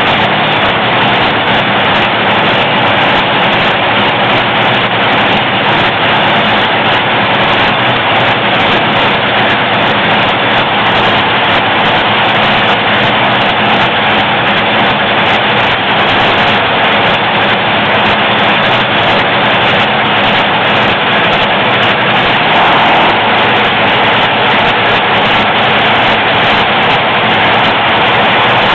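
Top Fuel dragster's supercharged, nitromethane-burning Hemi V8 running steadily and very loud during a pit warm-up, swelling slightly a little after three quarters of the way through.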